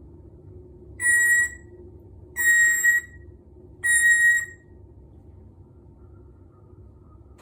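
African grey parrot whistling three level, steady notes, each about half a second long and about a second and a half apart.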